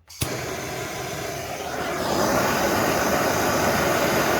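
Heat gun switched on with a click and blowing steadily, getting louder about two seconds in, heating the end of the sensor to loosen the glue holding it.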